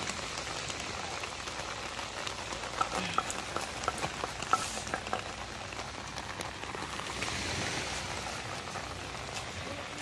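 Steady rain falling, an even hiss with a scatter of light ticks and drips about three to five seconds in.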